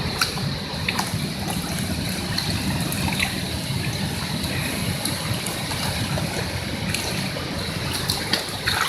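Steady rush of a small waterfall pouring into its plunge pool, with a few light ticks over it.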